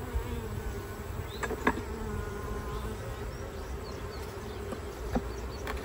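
Honey bees buzzing as a steady hum around an open hive, with a few faint clicks as wooden frames and a metal hive tool are handled.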